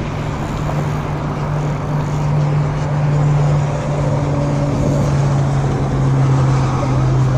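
Boat motor running with a steady low drone, its pitch dropping slightly about five seconds in.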